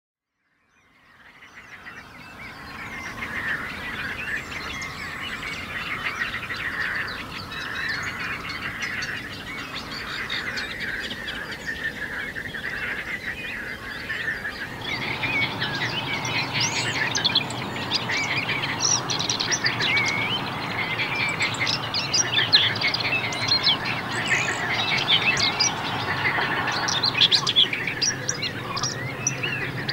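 A dawn chorus of many birds singing and calling at once over a reedy wetland, fading in over the first few seconds. About halfway through the calls grow busier and a low steady hum joins underneath.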